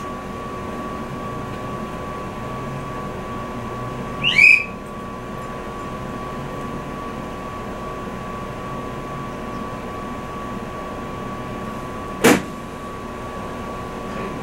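Inside an Izukyu 2100 series electric train carriage: a steady equipment hum with a constant high whine. A short squeak rises and falls about four seconds in, and a single sharp knock comes about twelve seconds in.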